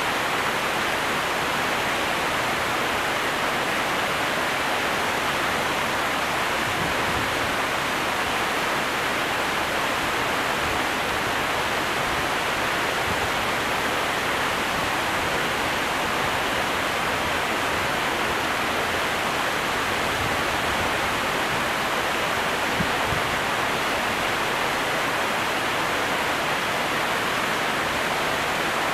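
Steady rushing of water pouring through a canal lock, an even hiss-like wash with no changes.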